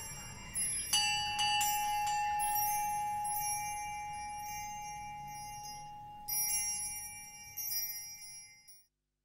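Ambient music of bell-like chimes, struck a few times and left to ring, over one long ringing tone; everything fades away to silence near the end.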